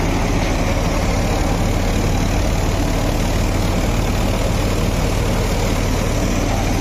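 Sonalika Tiger DI 55 tractor's diesel engine running steadily under load while driving a straw reaper, with the reaper's reel and threshing machinery running alongside. The engine is not bogging down.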